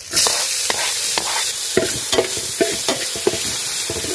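Chopped tomato dropping into hot oil with frying onions, setting off a sizzle that jumps up as it goes in, then a slotted metal spoon stirring and scraping against the metal pot in quick repeated strokes, about two or three a second, over the continuing sizzle.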